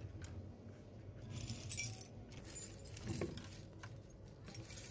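Small metal hardware clinking and jingling in several short spells as screws and washers are handled and set on a swivel caster's steel plate with a screwdriver, with a dull knock about three seconds in.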